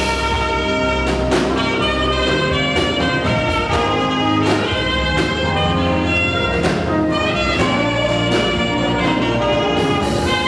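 Saxophone playing an energetic African high-praise tune over a live band, with sustained melody notes above a steady bass line and drum beats.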